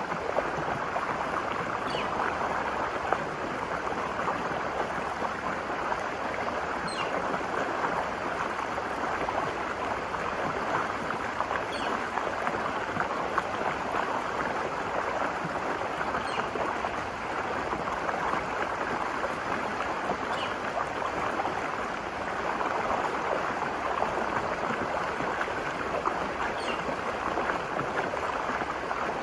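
Virgin River flowing steadily, a continuous rushing and babbling of stream water. A faint, short high chirp sounds over it every four to five seconds.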